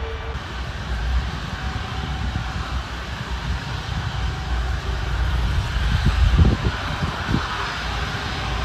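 Airbus A330-343 jet airliner with its Rolls-Royce Trent 700 engines running as it rolls along the runway, a steady jet rumble and hiss. The low rumble swells about six to seven seconds in.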